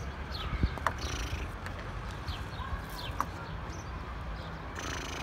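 Outdoor ambience: low wind rumble on the microphone with scattered short, high bird chirps and a few soft clicks, and a brief rush of noise near the end.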